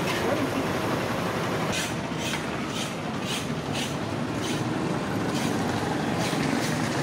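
Bajjis deep-frying in hot oil in a large kadai: a steady sizzle. Between about two and four seconds in there is a run of short strokes, about two a second, as a slotted ladle works in the pan.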